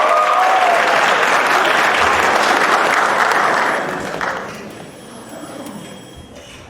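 Theatre audience applauding, dying away about four seconds in.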